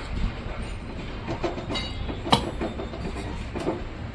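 Steady low rumble with scattered light metallic knocks and clicks, and one sharper knock a little over two seconds in.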